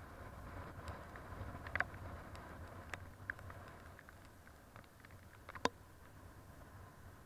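Muffled steady rumble of a motorbike ride in heavy rain, with a handful of sharp taps from raindrops striking the camera.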